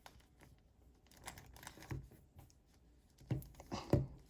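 Plastic Rubik's Cube being turned with two fingers: irregular faint clicks and clacks of the layers turning, with a few louder knocks near the end.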